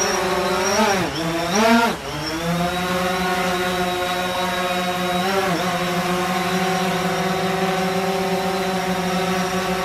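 DJI Phantom 4 Pro quadcopter's four propellers giving a steady high-pitched buzz as it hovers and climbs. The pitch dips and swings briefly about a second in, and again about five and a half seconds in, as the motors change speed.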